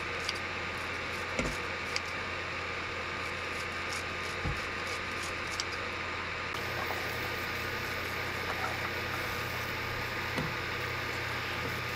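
Steady low hum and hiss of a running induction cooktop under a wok, with a few faint soft knocks as handfuls of enoki mushrooms are dropped into the pan.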